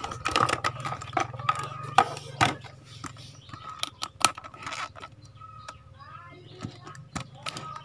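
Irregular sharp clicks and light knocks from hands handling an analog multimeter and its test probes at the repair bench, over a steady low hum.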